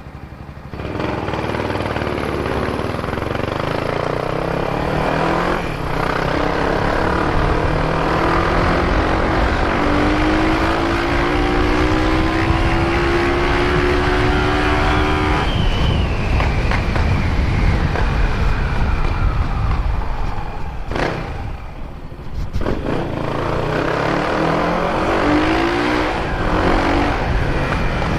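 Honda CBX 250 Twister's single-cylinder engine running through a Doré aftermarket exhaust freshly repacked with new fiberglass, accelerating: the pitch climbs steadily for several seconds, drops sharply about halfway, and climbs again near the end.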